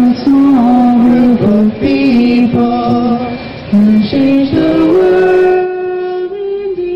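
A woman singing a slow melody in long held notes, settling on one long sustained note about five seconds in.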